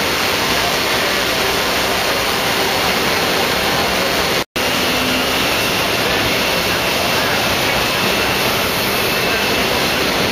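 Multirotor camera drone's propellers spinning, a loud steady whoosh. The sound cuts out for a split second about halfway through.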